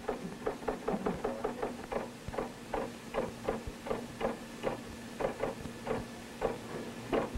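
Teleprinter keyboard clacking in an irregular run of sharp strikes, quick at first and then slower and more spaced out, over a steady electrical hum.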